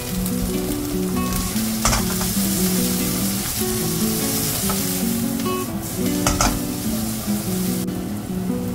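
Onions and scrambled egg sizzling in a hot, oiled wok as they are stir-fried with a silicone spatula, with a couple of brief scrapes of the spatula on the pan. Acoustic guitar background music plays over it.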